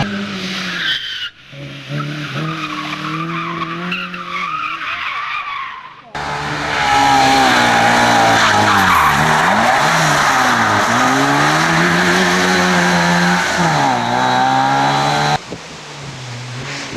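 Race car engines revving in a series of edited shots. In the loudest middle stretch the engine pitch drops and climbs again several times, as at gear changes and corners, over heavy tyre skid noise.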